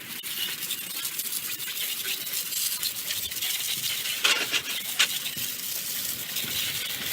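Brush scrubbing a wet car tire: a rough, irregular scratching, with two louder strokes about four and five seconds in.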